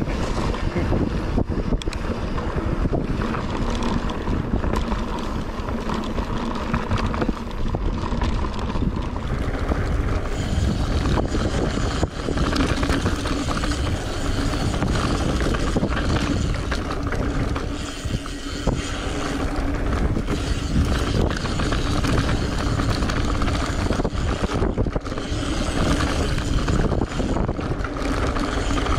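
Mountain bike rolling over a dirt singletrack, heard from a handlebar-mounted camera: steady wind rushing over the microphone along with the tyres on dirt, and frequent small knocks and rattles from the bike over bumps.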